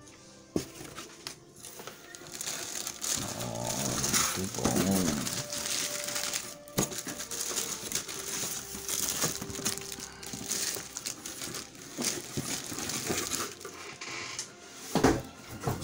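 Clear plastic packing film crinkling and rustling as boxed model kits wrapped in it are handled and lifted out of a cardboard shipping box.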